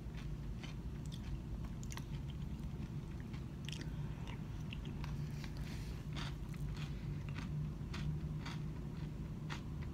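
Close-up chewing and mouth sounds of a person eating an acai bowl with a plastic spoon: a scatter of short wet clicks and smacks, over a steady low room hum.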